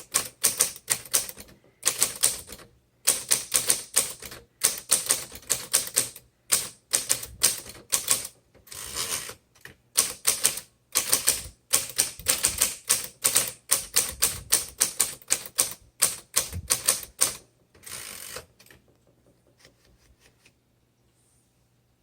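Electric portable typewriter (1958 Smith Corona Electric) being typed on in quick runs of keystrokes broken by short pauses, over a steady low hum. The typing stops near the end.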